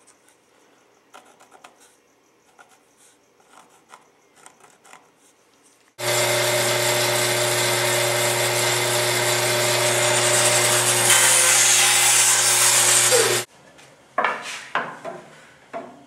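A stationary woodworking power tool running for about seven seconds: a steady motor hum under a loud hiss that grows brighter near the end, cutting in and out abruptly. Light clicks of wood being handled come before it, and a few knocks after.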